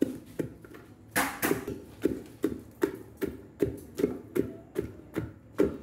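Wooden pestle pounding hot boiled palm fruits in a mortar: a steady run of thuds, about two and a half strokes a second, mashing the pulp loose from the palm nuts.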